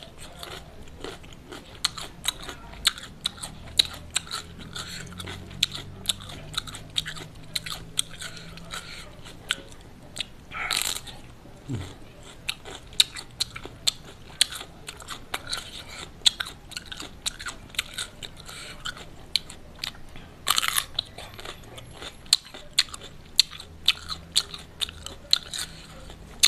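Close-miked crunching and wet chewing of a raw cucumber: a steady run of crisp little crunches as it is chewed, with a few louder bites.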